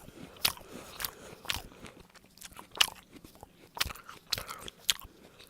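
Chewing and biting a juicy Golden Delicious apple close to the microphone: a series of sharp, irregular crunches.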